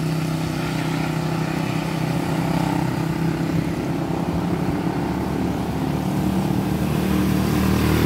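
A motor vehicle's engine running steadily, with road noise. The engine's hum blurs into a rushing haze in the middle and steadies again near the end.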